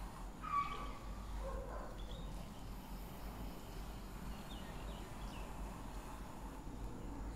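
Chalk drawing straight lines on a blackboard: faint scraping strokes with a few short, thin squeaks, the loudest about half a second in, over a low steady hum.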